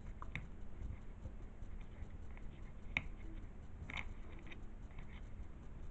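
A few faint, sharp clicks and taps as the small gears of an opened blend door actuator are handled and tried in place in its housing.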